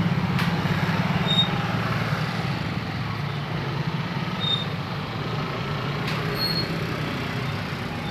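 Heavy vehicle engine running at a steady idle: a low rumble with a fine, rapid pulse. A few faint, short high chirps are scattered over it.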